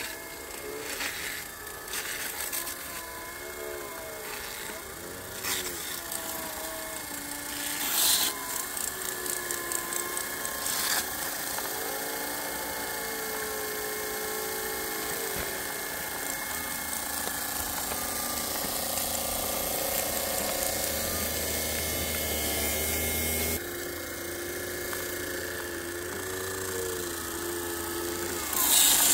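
Small electric motors of a G-scale garden railway train with a track-cleaning brush car whining as it runs, the pitch wavering up and down, with occasional clicks in the first ten seconds. The tone shifts abruptly about two-thirds of the way through.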